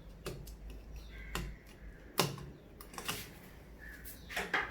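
Scattered sharp clicks and knocks of hard plastic parts being handled as a wall switch is fitted into its wall box, with a louder cluster of knocks near the end.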